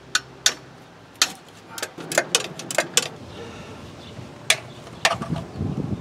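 Irregular sharp metallic clicks and clinks of a wrench working on the oil cooler mounting bolts of a 6.6L diesel engine, about ten over a few seconds.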